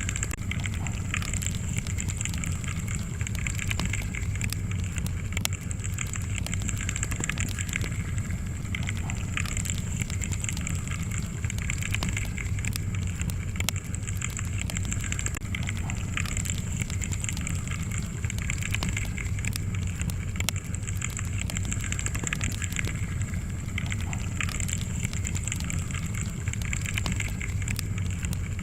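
Wood fire crackling steadily in a fireplace, with frequent small sharp pops over a low, even rumble of the flames.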